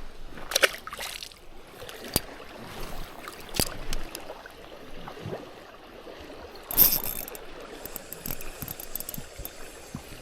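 Shallow river water trickling and splashing, with a few sharper splashes, the loudest about seven seconds in.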